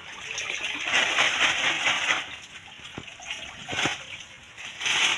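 Water pouring and splashing from a lifted plastic fish bag into a pond. It is loudest for about a second, a second in, with shorter gushes later.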